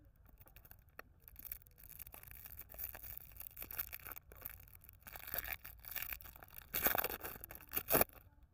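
Clear plastic lollipop wrapper crinkling and crackling as it is pulled off the candy, with the loudest crackles near the end.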